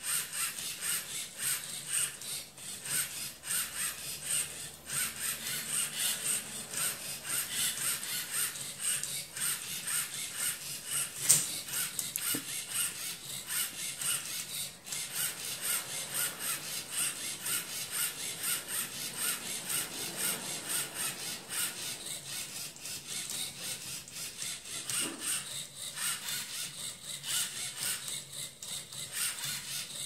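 Lego EV3 robot's motors turning the faces of a Rubik's cube one after another in a fast, even rhythm of short motor whirs and plastic cube layers rotating, as it works through a beginner-method solve. One sharp click about eleven seconds in is the loudest sound.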